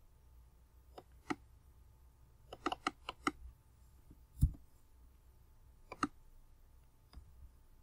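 Scattered clicks and taps of a computer keyboard and mouse: a few single clicks, a quick run of keystrokes from about two and a half to three and a half seconds in, and a louder, duller knock about four and a half seconds in.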